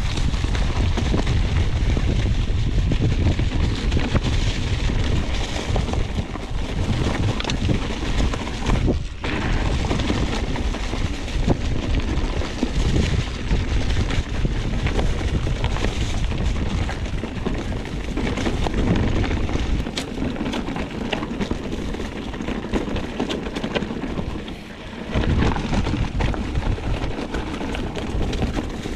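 Wind buffeting the microphone in a loud, gusty rumble while riding a trail, with many small rattling knocks, easing briefly twice.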